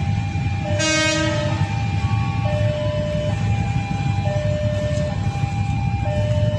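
A train horn sounds once, briefly, about a second in, over a steady low rumble. A tune of held notes at changing pitches plays throughout.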